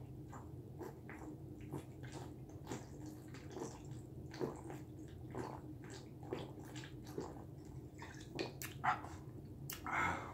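A person gulping wine straight from the bottle, a swallow about every second. Near the end the bottle comes down and there is a louder breath out.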